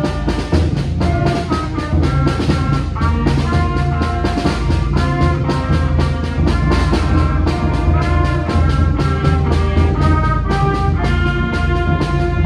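A small school concert band playing live: clarinets, saxophone and trumpets sounding held notes over a steady drum beat.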